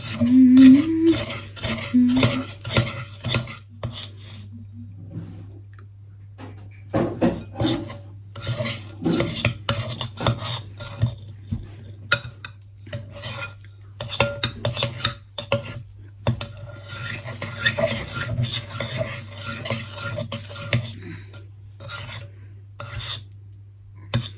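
A spoon stirring and scraping round a mixing bowl, creaming butter and sugar, in irregular clinks and scrapes that let up for a few seconds about four seconds in. A steady low hum runs underneath.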